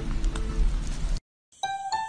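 Background music that breaks off about a second in, a moment of silence, then a light chiming tune of bell-like notes.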